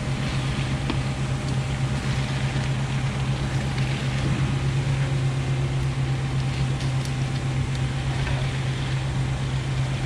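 Diesel engine of a concrete pump truck running steadily, holding one constant hum.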